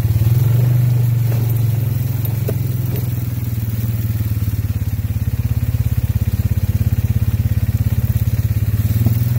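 2018 Polaris Sportsman 570 Touring ATV's single-cylinder engine running steadily under way, a low pulsing drone that dips slightly about halfway through and then picks up again.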